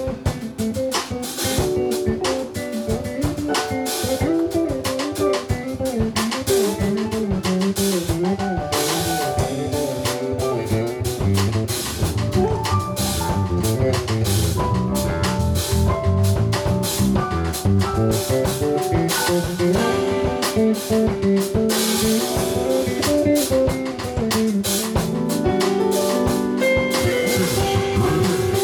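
Live jazz-funk band playing: electric bass line, guitar, organ-style keyboard and drum kit with steady cymbal and snare hits.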